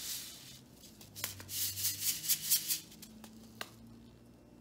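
Small paper packet of chia seeds handled and shaken, the seeds rattling in a quick series of strokes for about a second and a half in the middle, with the paper rustling as it is turned over.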